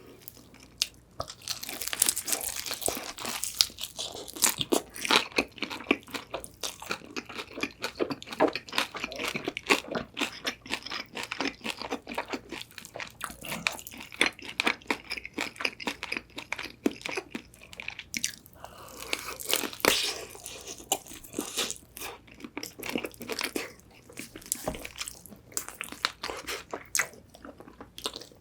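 Close-miked crunching and chewing of old-style Korean whole fried chicken: bites into the crisp fried crust give dense, sharp crackles, starting about a second and a half in and running on with a brief lull midway.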